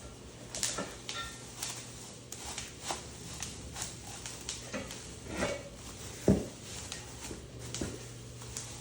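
Bubble-wrapped packaging and equipment parts being handled: scattered rustles and light clicks, with one louder knock about six seconds in.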